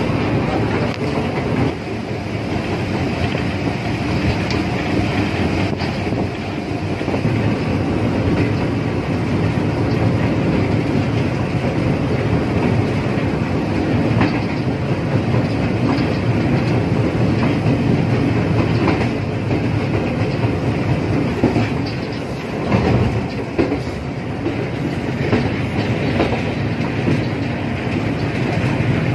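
Parcel express train running at speed, heard from aboard at its rear: a steady rumble of wheels on the rails with the clickety-clack of wheels over rail joints.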